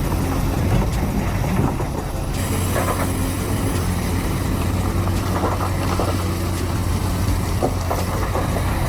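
Crawler excavator working: a steady low diesel engine drone with scattered short clanks and knocks.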